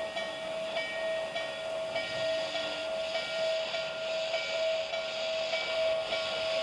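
O gauge model of the N&W J-class 611 steam locomotive running with its onboard steam sound effects: rhythmic chuffs a little under two a second over a steady high hum, with a longer steam hiss from about three seconds in.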